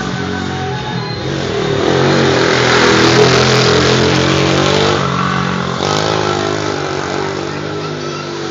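ATV engine revving as the quad accelerates. It rises in pitch and grows loudest a few seconds in, eases off about five seconds in, then picks up again briefly.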